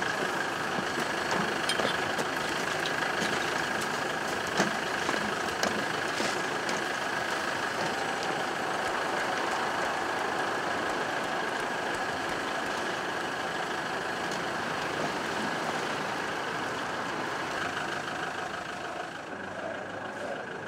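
Minibus engine idling steadily, with a few light knocks.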